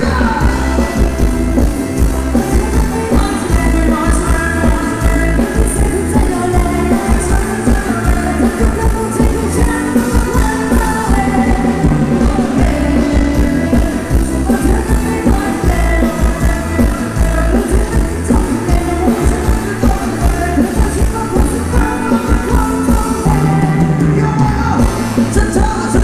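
Amplified band playing a Thai ramwong dance song, with a singer over a steady, heavy beat.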